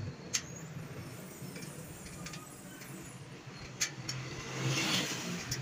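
Spoke wrench clicking on the spoke nipples of a bicycle wheel while the spokes are tightened and loosened to true the rim: sharp metallic ticks, the loudest just after the start and about four seconds in. A soft hiss rises and fades near the end, over a steady low hum.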